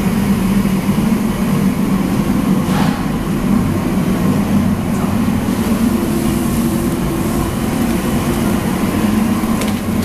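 Steady, loud mechanical drone with a low hum, from commercial kitchen machinery running, with a couple of brief clanks.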